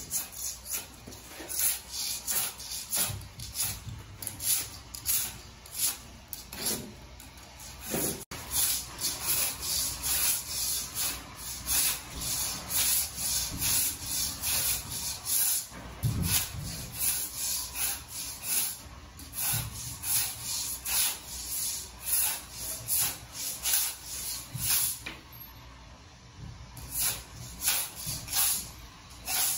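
Hand floor scraper scraping dried flooring glue and torn backing off a concrete floor in quick repeated strokes, a raspy scrape about twice a second. There is a short lull near the end before the strokes start again.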